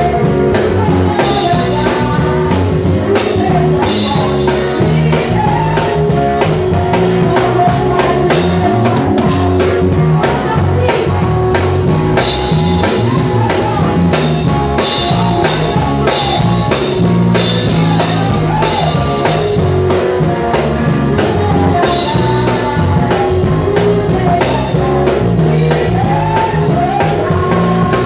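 Live church band playing: electric bass guitar, electronic keyboard and drum kit together, with a singer's voice over them.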